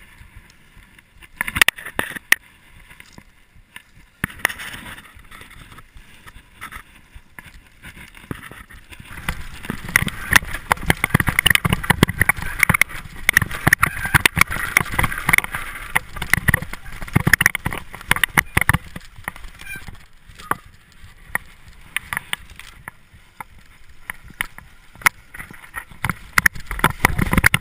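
Mountain bike ridden down a dirt forest trail, heard through a GoPro on the rider: tyres rumbling over dirt and roots, and the bike rattling, with sharp knocks over bumps. Sparse knocks for the first several seconds, then louder and rougher riding from about a third of the way in.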